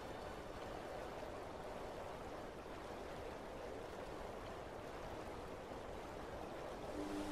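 Steady rushing noise like running water, with no musical notes, in the soundtrack between two pieces of background music; a new melody's notes come in near the end.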